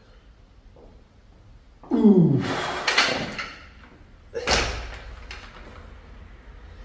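A loud grunt of effort with falling pitch about two seconds in, then a pair of dumbbells set down on the gym floor with heavy thuds, the last and sharpest about four and a half seconds in.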